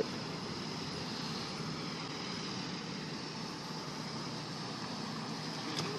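Steady outdoor background noise, even and without distinct events, with a faint high steady tone over it.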